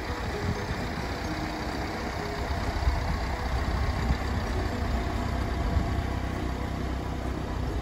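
Vauxhall Vivaro van's diesel engine idling steadily.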